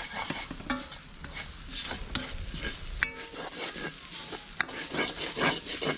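Shredded cabbage and carrot sizzling in a large metal wok over a wood fire, stirred and turned with a long-handled spatula in repeated scraping strokes against the pan.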